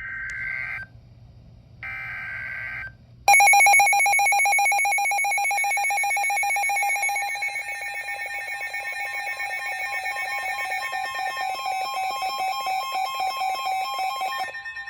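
Emergency Alert System alert: two short bursts of warbling SAME header data, each about a second long, then about three seconds in the harsh, steady EAS attention tone, held for about eleven seconds. It heralds a tornado warning broadcast.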